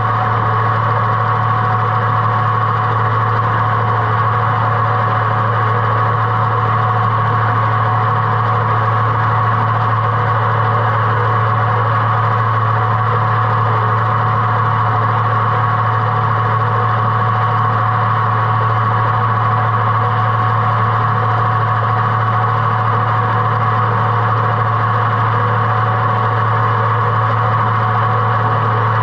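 Tractor engine running at a steady speed, with the Oliver 356 sickle-bar mower cutting roadside grass on its newly made wooden pitman arm.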